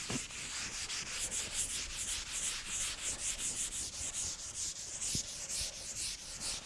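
A chalkboard eraser rubbing back and forth across a chalkboard, wiping off chalk in rapid, even strokes of about three to four a second.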